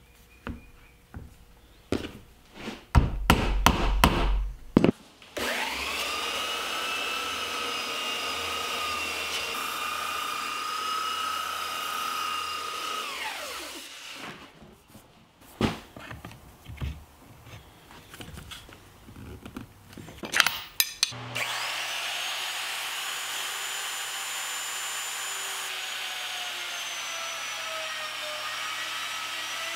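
Several sharp knocks on a wooden beam, then a belt sander running steadily on the wood for about eight seconds before winding down. More scattered knocks follow, then a router starts with a rising whine and runs steadily as it cuts along the beam's edge.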